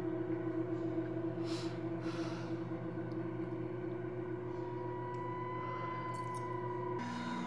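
Sustained ambient drone of suspense background music, held on steady low tones. A thin higher tone joins it, and the chord shifts about seven seconds in. Two brief hiss-like swells come about one and a half and two seconds in.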